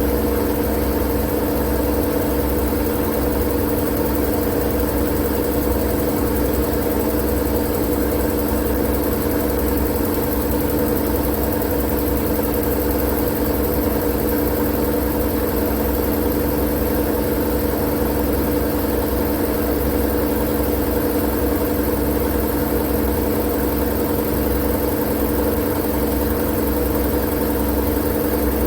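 Steady white-noise drone with a constant low hum running through it, never changing in level.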